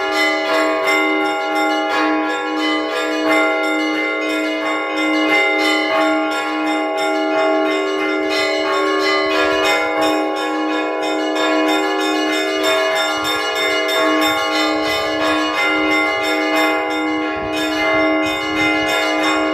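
Orthodox church bells rung by hand in the belfry: several bells sound together in a continuous peal of quick, overlapping strokes, with one lower bell struck at a steady repeated beat under the denser chiming of higher bells. It is the ringing that calls parishioners to service.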